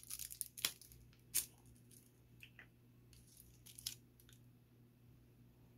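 Orange plastic screw cap of a Gatorade bottle twisted open: the seal ring cracks in a quick run of clicks with two sharp snaps within the first second and a half, followed by a few fainter plastic clicks and crinkles as the bottle is handled.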